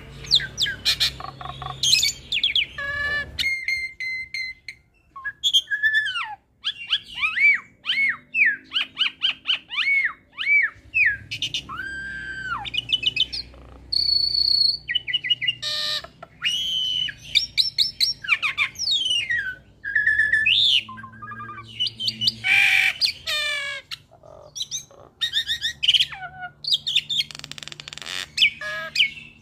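Hybrid jalak (Asian pied starling × Nias hill myna) singing a long, varied chatter of rapid whistles, chirps, pitch glides, trills and harsh rasping notes, broken by short pauses.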